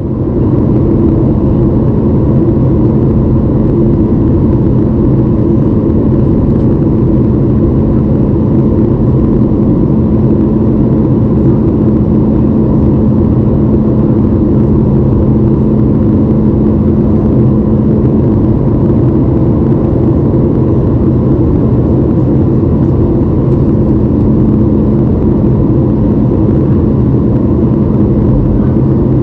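Steady cabin noise inside a Boeing 737 MAX 8 on descent: the CFM LEAP-1B engines and the airflow past the fuselage make a deep, even drone with a few low hum tones held on top.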